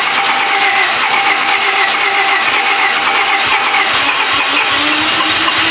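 1995 Honda Civic's four-cylinder engine being cranked by the starter motor, turning over steadily without starting: a no-start with spark and fuel both confirmed present.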